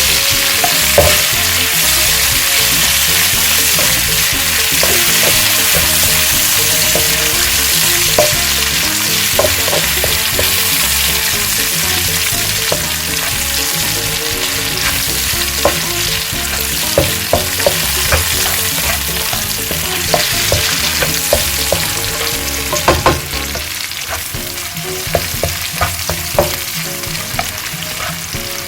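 Hotdog and bacon sizzling in hot oil in a frying pan, a steady loud hiss, with a utensil knocking and scraping against the pan as they are stirred; the knocks come more often in the second half.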